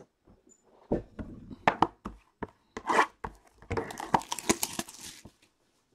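A cardboard trading-card box handled on a tabletop: a series of irregular knocks and taps, then a stretch of tearing and rustling as the box is opened, about four seconds in.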